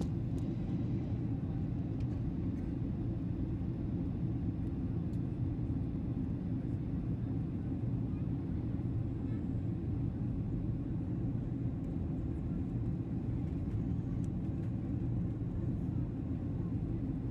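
Steady low rumble of a jet airliner's cabin in flight, heard inside the cabin at a window seat over the wing during the descent.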